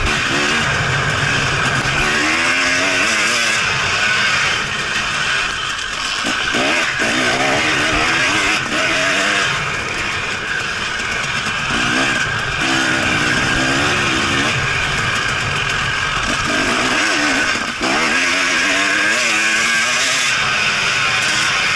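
Enduro motorcycle engine heard from the bike's onboard camera at race pace, its note rising and falling repeatedly with throttle and gear changes. The note briefly drops about three-quarters of the way through.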